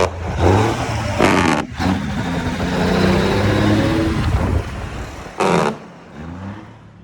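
Cummins 855 Big Cam diesel engine of a 1973 Kenworth W900A semi running, its pitch rising and falling as it is revved. There are two short bursts of hiss, about a second in and about five and a half seconds in, and the engine grows quieter near the end.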